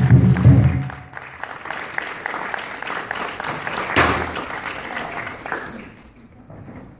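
Lion dance percussion (drum, cymbals and gong) stops about a second in. Audience applause follows, swells briefly and then fades out.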